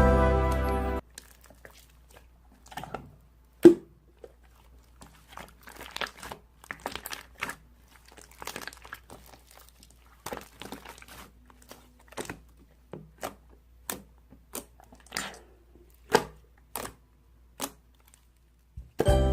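Background music cuts off about a second in, followed by scattered small clicks, taps and crinkly rustles of something being handled, one sharper knock near the four-second mark.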